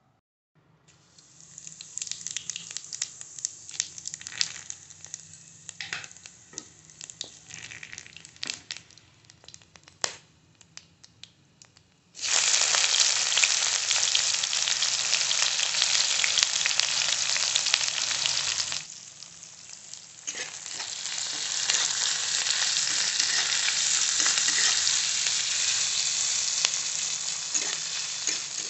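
Hot oil crackling and spitting in a wok, with scattered sharp pops. About twelve seconds in, sliced onions go into the oil with a sudden loud sizzle. The sizzle dips briefly, then builds again and carries on as the onions are stirred and fried with a spatula.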